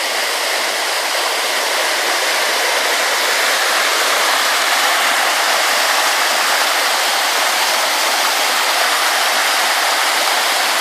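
Mountain stream rushing loudly over rocks in a valley, a steady, dense water roar with no pauses.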